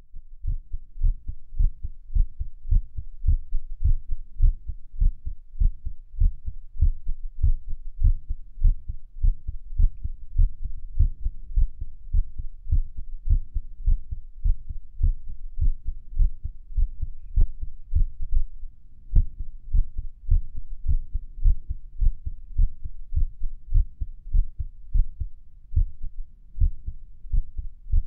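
Human heartbeat heard through the chest at Erb's point, a steady run of low thudding lub-dub beats, in a rhythm the owner calls irregular. Two faint sharp clicks come near the middle.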